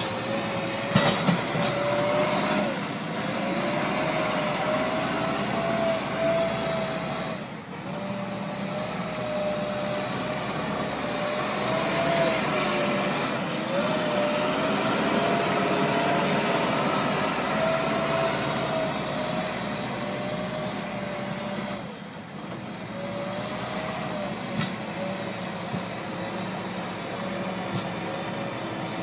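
Hidromek 102S backhoe loader working, a steady machine drone with a whine that rises and falls in pitch as it is worked; the sound dips briefly twice, and there are a few knocks about a second in.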